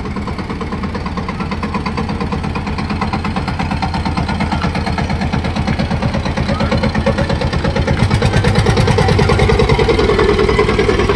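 Old tractor's engine chugging at a slow, even beat as it pulls a wagon past at walking pace, growing louder about two-thirds of the way through as it comes closest.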